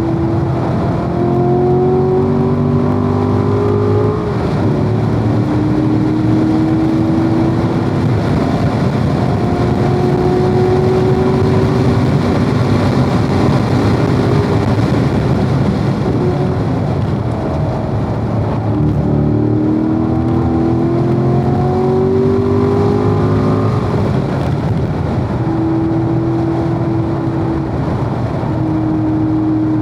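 Corvette V8 engine under hard acceleration on a road course. It climbs in pitch and drops sharply at two upshifts, about four seconds in and again near the end, and runs at a steady note between them over constant road and wind noise.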